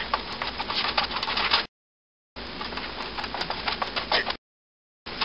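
Wooden spatula scraping and knocking in a frying pan as eggs are scrambled, a run of quick clicks and scrapes. The sound drops out completely twice, each time for under a second.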